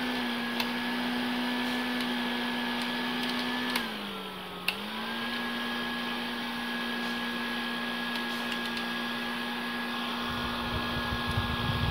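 Nishika Mr. Cool 007 rechargeable mini fan running steadily, its small motor and plastic blades giving a steady whirring hum. About four seconds in, a click is followed by the hum dipping in pitch as the fan slows. After a second click about a second later, it speeds back up to its steady hum.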